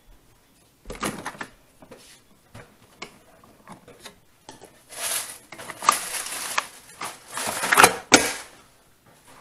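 Plastic clicks, rustling and sharp clacks from a Keurig 2.0 single-cup coffee maker being loaded: the lid lifted, a K-cup pod dropped in and the lid pressed shut. The loudest clacks come about six seconds in and again near eight seconds.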